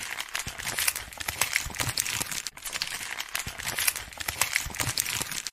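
Paper crumpling and crinkling in a dense run of crackles, with a brief lull about two and a half seconds in.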